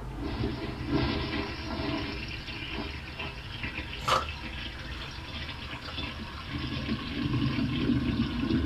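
A toilet flushing: a steady rush of water, with one short sharp click about four seconds in.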